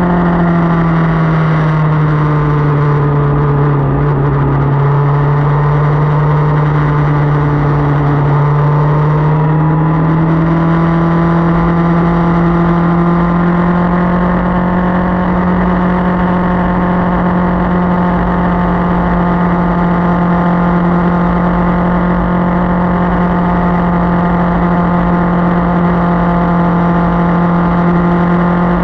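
Motorcycle engine running on the road. Its pitch drops for several seconds, then climbs back and holds steady for the rest of the time.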